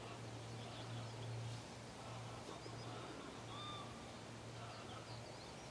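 Quiet open-air ambience: birds chirping faintly now and then over a steady low hum.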